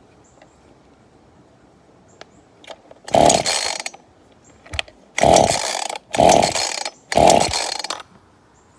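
Ryobi 18-inch two-stroke chainsaw being pull-started cold: four short bursts of the recoil starter rope whirring and the engine turning over, about a second apart, with a few light clicks before them. The engine does not catch.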